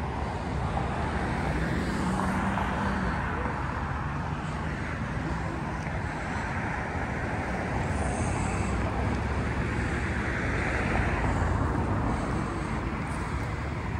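Road traffic: a steady rush of passing cars' tyres and engines, swelling as vehicles go by about two seconds in and again near eleven seconds.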